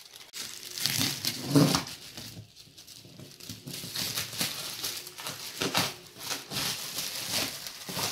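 Thin plastic packaging crinkling and rustling as it is handled, in irregular crackles of varying loudness.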